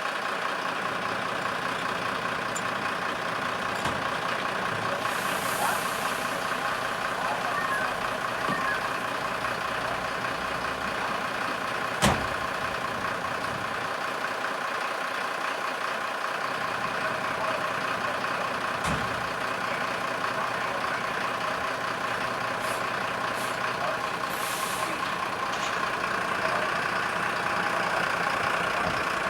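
Fire engines' diesel engines idling steadily. Two short air hisses come about five seconds in and again near the end, and a single sharp click about halfway through.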